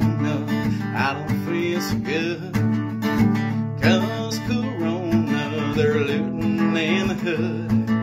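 Steel-string acoustic guitar strummed in a steady rhythm, with a man singing a chorus over it in several phrases.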